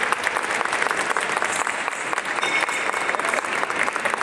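A crowd of onlookers applauding, many hands clapping at once without a break.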